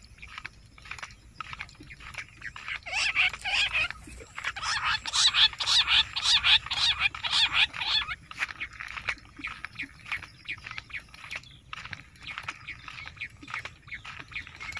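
Bush quail calling: a rapid, chattering run of short notes, loudest from about three to eight seconds in.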